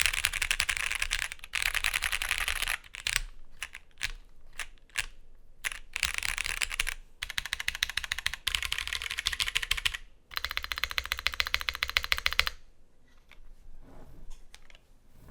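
Typing on an OTD 356CL custom mechanical keyboard with Cherry MX Clear tactile switches (9039 clears, spring-lubed), a polycarbonate half plate and double-shot keycaps: fast runs of keystrokes broken by short pauses and a few scattered key presses. The typing stops about twelve and a half seconds in, leaving only a few faint clicks.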